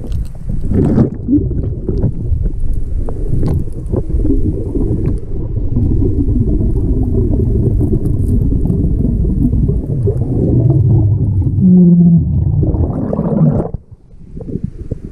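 Muffled, rumbling underwater noise of a free diver moving through the water and working at the rock, picked up underwater. About a second and a half before the end it rises into a rushing splash as the diver breaks the surface, then drops away suddenly.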